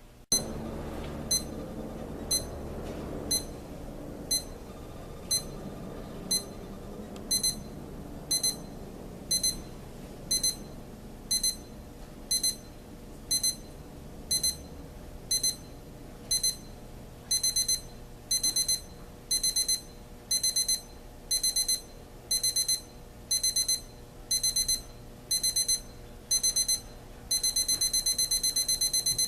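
Equity 30221 weather station alarm clock's 4-stage ascending alarm going off: high-pitched electronic beeps about once a second, which lengthen into longer bursts about a quarter and about halfway through, then turn into continuous rapid beeping near the end.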